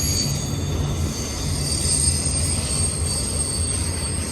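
Intermodal freight train's cars rolling past steadily, with a continuous low rumble of wheels on rail and a thin high wheel squeal above it.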